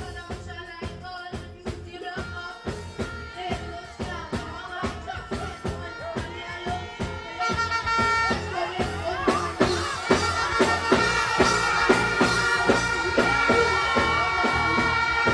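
Dancehall music playing through a stage sound system with a steady drum beat. About eight seconds in it gets louder, with held notes on top.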